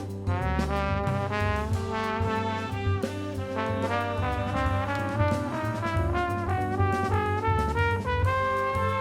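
Instrumental music: a lead wind-instrument melody over a steady bass accompaniment.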